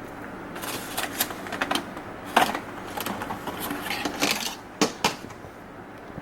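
Blueberries dropped by the handful into a bowl on a kitchen scale: irregular small clicks and rattles, a few at a time, until about five seconds in, while the weight is brought up to 50 grams.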